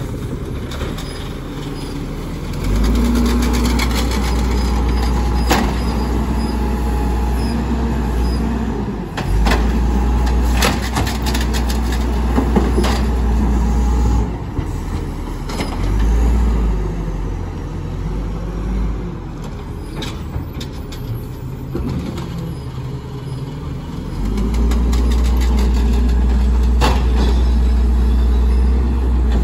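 Automated side-loader garbage truck at work: its engine revs up and holds for several seconds at a time as the hydraulic arm grabs, lifts and empties wheeled trash carts, then drops back. Sharp knocks and bangs from the carts and the arm are scattered through it.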